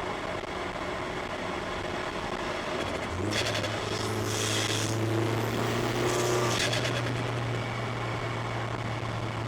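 Turbocharged Mini Cooper engine running steadily, heard from inside the cabin. About three seconds in the engine note steps up to a stronger steady hum. Two stretches of hiss sit over the engine between about three and seven seconds.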